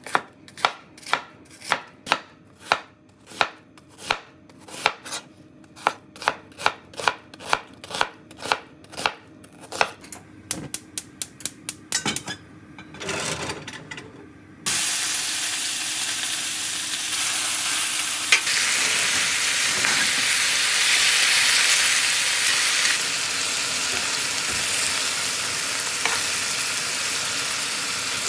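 A kitchen knife chopping onion on a cutting board, about two strokes a second, quickening and lighter near the end. About 15 seconds in, a loud steady sizzle starts suddenly as sliced pork fries in a hot iron frying pan, with one sharp clack a few seconds later.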